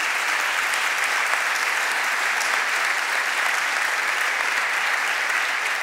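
Audience applauding steadily, a dense even clapping at the announcement of the venue's new name.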